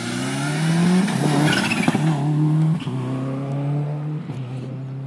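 Subaru rally car's flat-four engine accelerating hard past at full throttle. The pitch climbs and drops back at three gear changes, about two, three and four seconds in. It is loudest as the car goes by, between the first and second seconds.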